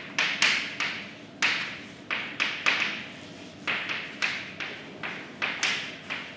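Chalk writing on a blackboard: a run of sharp taps, each trailing into a brief scratch as a letter is stroked out, about two to three a second and irregularly spaced.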